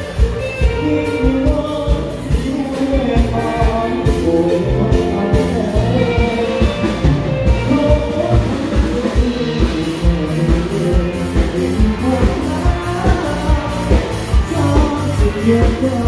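A band playing with a singer, over a steady drum beat.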